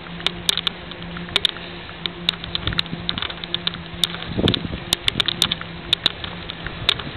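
Riding noise from a camera carried on a moving bicycle: irregular sharp clicks and rattles several times a second over a steady hiss and low hum, with a brief louder rumble about four and a half seconds in.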